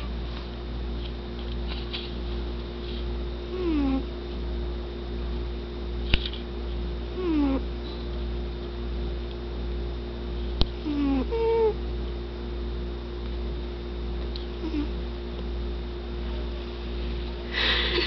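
Domestic cat snoring: a short falling tone on each breath, about every three and a half seconds, over a steady low hum. Two sharp clicks come near the middle.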